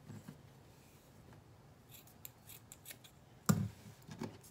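Small scissors snipping through thick macramé cord, a few short sharp snips about two seconds in. A louder knock follows about three and a half seconds in.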